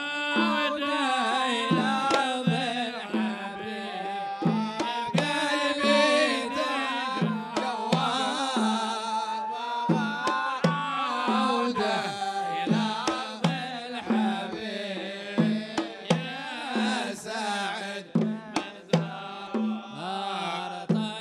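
A Hadhrami zarbadi song: voices singing a wavering melody over a steady rhythm of deep drum strokes, with sharper hand-drum hits between them.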